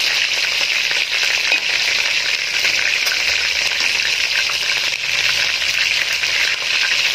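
Browned chicken pieces frying in hot oil in a wok: a steady sizzle, with a few light taps of metal tongs as pieces are turned and lifted out.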